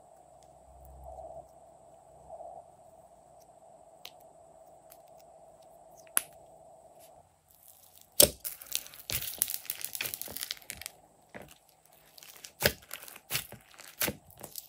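Slime crackling and popping as hands press and squish it in a glass bowl. After a faint first half with a low steady hum, a dense burst of crackling starts about eight seconds in, then gives way to a string of sharp snaps as the slime is pulled apart near the end.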